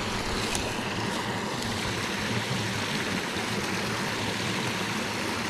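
Small rocky mountain creek running steadily, water splashing over a little cascade.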